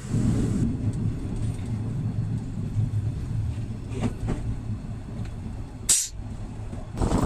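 Plasser & Theurer PLM 07-275 switch tamping machine travelling along the track, heard from inside its cab: a steady low drone of its diesel engine and the rumble of the running gear. About six seconds in there is one brief, sharp hiss.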